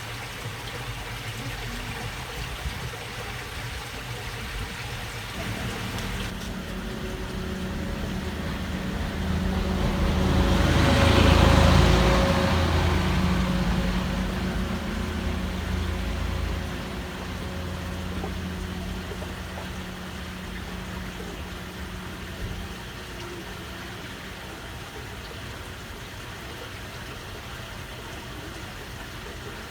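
A motor vehicle passes close by: its engine hum grows louder from about six seconds in, peaks around eleven to twelve seconds, and fades away by about twenty-three seconds. Water trickles steadily through a narrow waterway beneath it throughout.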